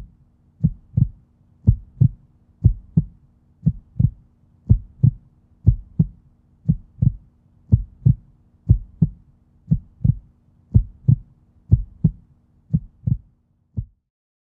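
Heartbeat sound effect: deep double thumps (lub-dub) about once a second over a faint low hum, stopping just before the end.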